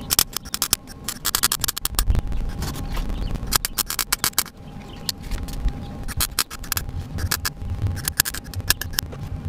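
MIG welder tack-welding sheet steel on a car body, a sputtering crackle in several short bursts with pauses between them.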